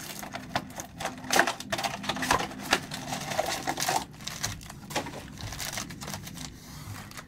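Foil-wrapped trading card packs handled, fanned and stacked by hand: a busy run of crinkles and sharp clicks and taps as the packs knock against each other.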